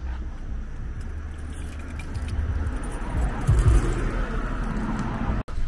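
Keys jangling over a steady low car hum, with a heavier low knock about three and a half seconds in.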